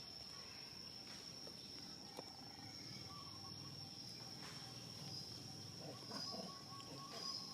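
Insects droning outdoors: one steady high-pitched buzz that never lets up, with faint scattered sounds around it.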